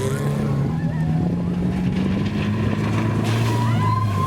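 Off-road tour jeep's engine running steadily at a low, even pitch that shifts slightly now and then.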